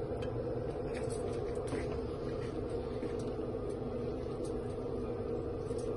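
Steady low mechanical hum and rumble from the kitchen, with a few faint clinks as a slotted spoon works in the pot and lifts chicken pieces onto a plate.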